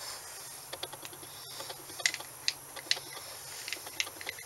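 Irregular light metallic clicks and clinks of steel gears and an axle shaft being handled and worked into an open Peerless MST transaxle case, as the differential gear is fiddled into mesh; the sharpest clicks come about two to three seconds in.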